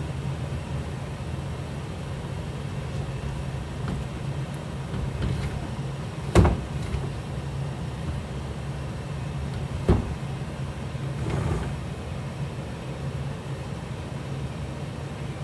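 Steady low hum and hiss while a lidded pot simmers on the cooktop, with two sharp knocks near the middle, the first the louder, about three and a half seconds apart.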